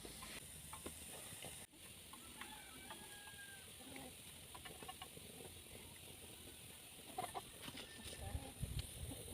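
Chickens clucking faintly in short scattered calls over a steady hiss, with a few dull knocks near the end.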